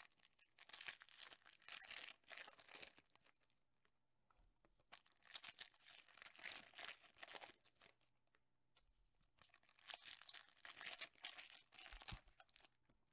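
Foil trading card packs being torn open and their wrappers crinkled by hand, in three bursts of crackling a few seconds apart.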